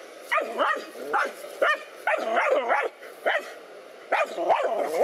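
Dogs barking and yapping at a snake in rapid, excited bursts, bark after bark with a short lull about three and a half seconds in.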